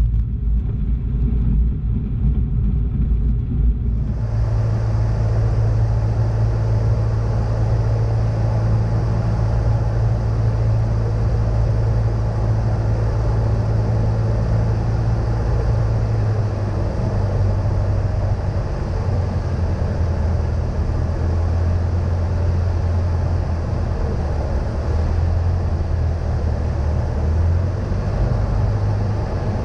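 Cessna 152's four-cylinder Lycoming engine running at low power, heard from inside the cabin, its low drone stepping in pitch a few times as the power changes. About four seconds in, a broader rushing noise joins it and stays.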